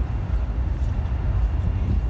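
Outdoor city background dominated by a steady, fluctuating low rumble, typical of wind buffeting the microphone, with faint distant voices.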